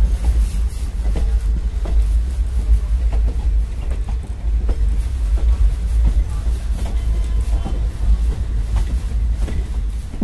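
Passenger coach of an express train running at speed, heard from an open door: its wheels give regular clacks over the rail joints under a heavy wind rumble on the microphone.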